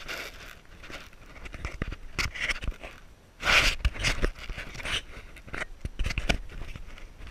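Mountain bike setting off along a dirt forest trail, with the rider breathing hard and the bike giving scattered knocks and rattles over the ground. A loud rushing burst about three and a half seconds in comes as a gloved hand passes over the camera.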